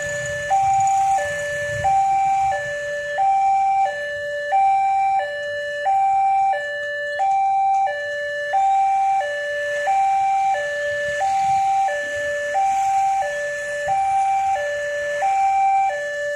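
Railway level-crossing warning alarm sounding: two electronic tones, one high and one lower, alternate steadily about every 0.8 seconds, signalling that a train is approaching and the road is closed.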